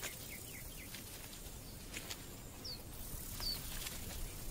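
Quiet outdoor ambience in which a small bird gives two short, high chirps that slide downward in the second half, with a few faint clicks.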